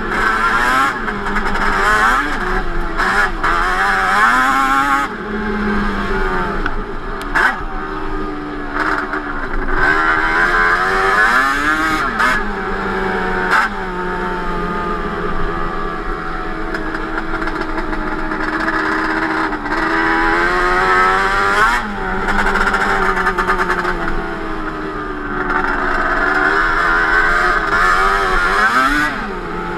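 Yamaha Banshee 350's twin-cylinder two-stroke engine, fitted with Toomey T5 expansion-chamber pipes, running under way, its pitch climbing and dropping again and again as the throttle is worked through the gears. Occasional short knocks sound over it.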